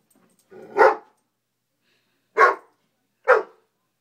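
Young Great Dane mix giving three loud single barks, one about a second in and two close together near the end: alarm barking at a bug.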